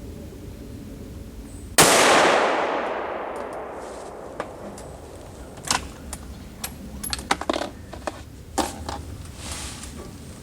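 A single rifle shot from a Ruger American Ranch bolt-action rifle in 5.56 NATO, about two seconds in, its report fading away slowly over several seconds. A string of short, sharp metallic clicks follows.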